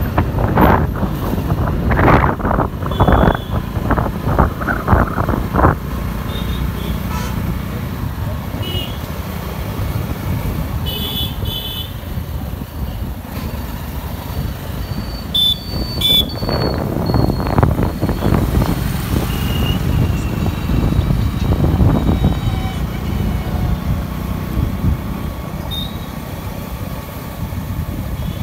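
Steady low road and engine rumble from a moving vehicle, with wind buffeting the microphone in gusts. A few brief, high horn toots from surrounding traffic come through.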